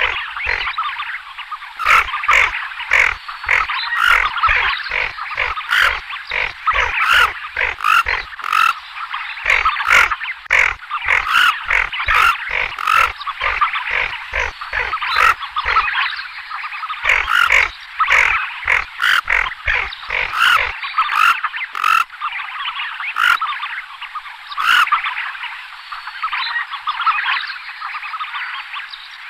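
A flock of tufted ducks giving a dense, unbroken chorus of rough, growling calls, many birds overlapping. Sharp clicks or knocks come often through the first twenty seconds, then only now and then.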